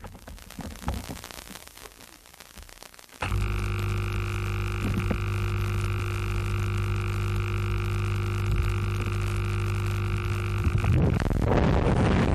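Steady electrical buzz on the FPV plane's onboard video-link audio, starting suddenly about three seconds in, while the motor is off. Near the end a rush of air noise swells as the plane is launched.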